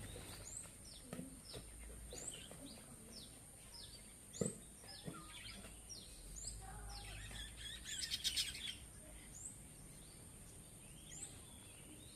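A bird calling over and over with high, thin notes that sweep downward, about one a second, and a quick run of notes about eight seconds in. A single soft thump comes about four seconds in.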